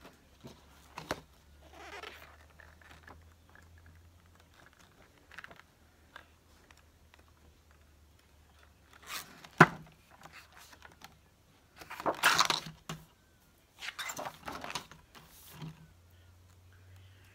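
Paper pages of a spiral-bound book being turned and handled: several rustling, flapping bursts, one with a sharp snap of paper about midway, the loudest a little after.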